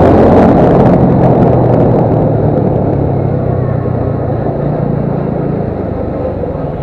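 Motorcycle engine running while riding, heard from a bike-mounted camera over a dense rush of road and wind noise; the sound eases down steadily as the bike slows.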